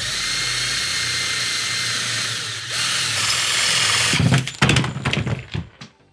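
Cordless drill boring into the metal plate of a JBL Charge 4's passive radiator: a steady, loud whirring with a high whine, dipping briefly partway through. About four seconds in the drilling stops, and a quick run of sharp knocks and clatters follows.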